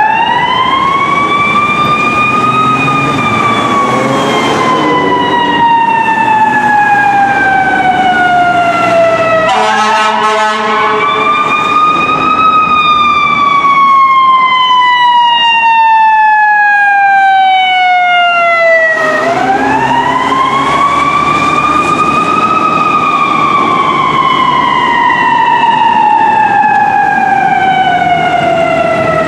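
Fire engine's siren wailing as the engine responds to a call: three cycles, each climbing quickly in about three seconds and then falling slowly for about seven. A short horn blast sounds about ten seconds in.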